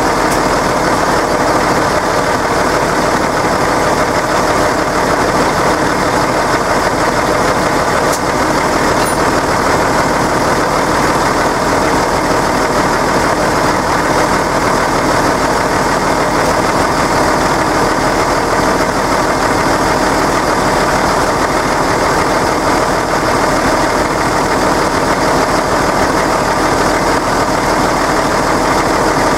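Deutz-Fahr tractor's diesel engine idling steadily.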